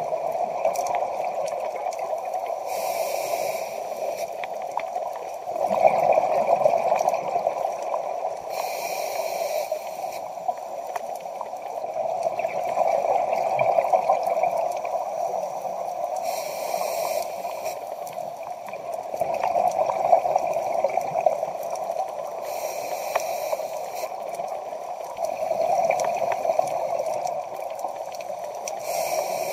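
Scuba regulator breathing underwater at a slow, even pace: a short hiss of inhalation about every six seconds, five times, each followed by a longer rush of exhaled bubbles.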